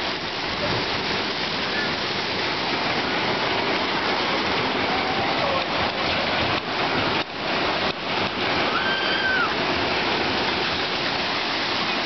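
Log flume water rushing steadily through the channel and pouring down the ride's chute into the splash pool.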